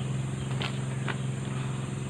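A steady low hum, with two short rustles of paper manuals being handled about half a second and a second in.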